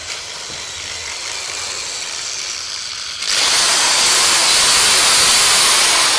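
A power tool running, a hissing whir that builds slowly, then gets suddenly louder about three seconds in and stays loud.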